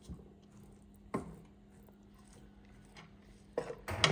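Wooden spatula stirring rice in a stainless steel pot: quiet scraping with a few sharp knocks of the spatula against the pot, one about a second in and the loudest near the end, over a faint steady hum.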